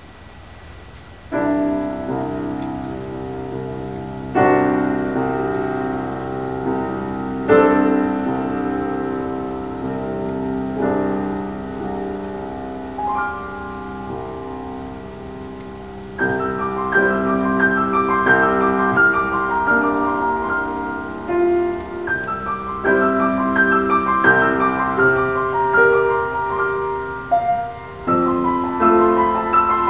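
Solo grand piano. The first chord comes about a second and a half in, and slow chords are struck and left ringing every few seconds. About halfway through it turns to quicker, busier notes higher up over the held bass.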